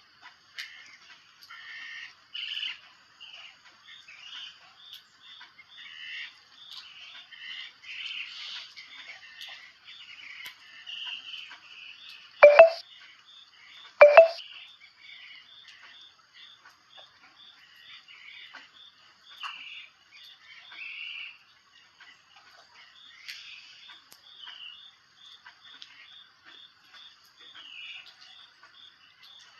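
Birds chirping and calling: many short, high chirps throughout, with a steady series of evenly repeated short notes in the second half. Two loud, sharp calls stand out about twelve and fourteen seconds in.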